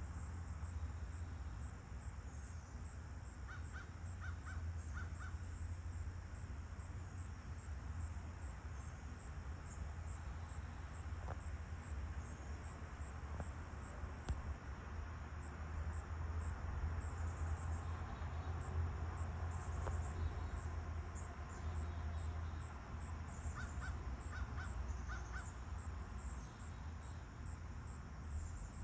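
Crickets chirping in a steady, high, pulsing rhythm, with a crow cawing about four times a few seconds in and again in another short run near the end, over a low steady rumble.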